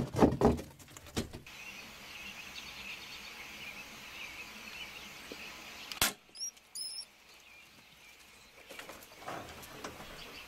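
An airsoft gun fires once, a single sharp crack about six seconds in, followed by two quick high squeaks, likely from the mouse it hit. Before the shot come a run of knocks and handling noise, with crickets chirring steadily throughout.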